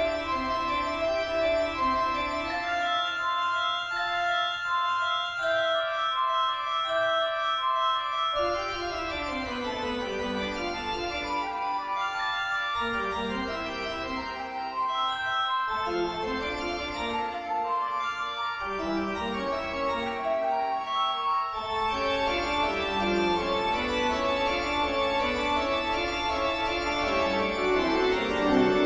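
Eerie horror-style organ music: slow held notes and chords, with lower notes coming in about eight seconds in and the sound growing fuller near the end.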